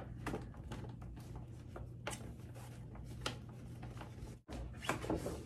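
Stiff paper shopping bag rustling and crinkling as hands reach in and lift out a cardboard gift box, with scattered small crackles and taps, over a faint low hum. The sound drops out briefly about four and a half seconds in.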